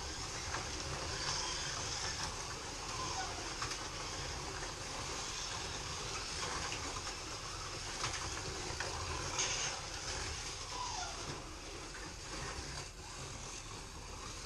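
Several FLY slot cars lapping a plastic Scalextric track: a steady whir of small electric motors and wheels running in the slots, with a few faint rising and falling motor whines and light clicks.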